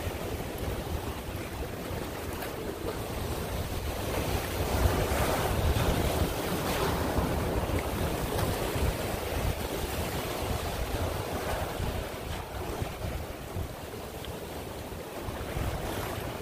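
Surf washing against the boulders of a rock jetty, with wind buffeting the microphone. The wash swells louder for a few seconds in the middle.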